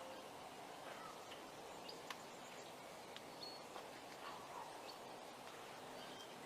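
Faint, steady outdoor background hiss with a few short, scattered bird chirps.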